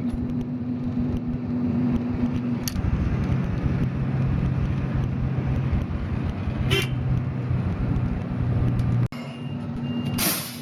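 Motor vehicle engine and exhaust running steadily in street traffic, its pitch dropping to a lower steady note about three seconds in. A few short sharp noises cut through, and the sound cuts off abruptly near the end.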